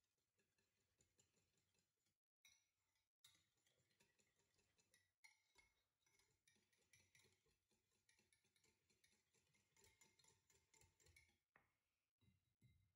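Very faint, irregular ticking and clinking of a wire whisk against a glass bowl as it stirs a thick, creamy salad dressing.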